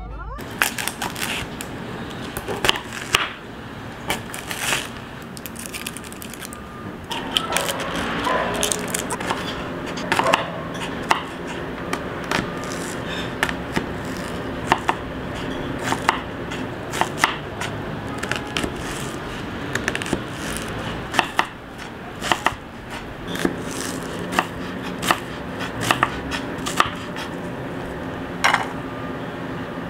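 Kitchen knife chopping an onion on a wooden cutting board: irregular sharp knocks of the blade on the board, over a faint steady hum.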